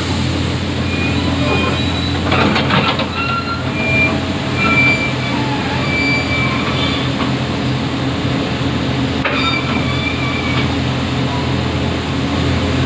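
Kobelco hydraulic excavator working, its diesel engine running steadily with short high-pitched squeals over it. A clattering rattle comes about two and a half seconds in, and a sharp click about nine seconds in.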